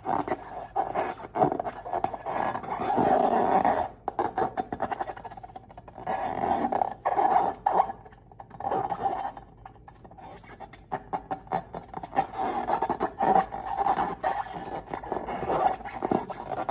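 Rubber balloons squeaking and scraping as they are rubbed and squeezed by hand, in irregular bursts of a second or two.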